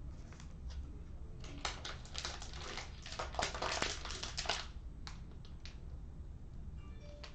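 Handling noise: a dense run of small clicks and crackles lasting about three seconds, then a few single clicks.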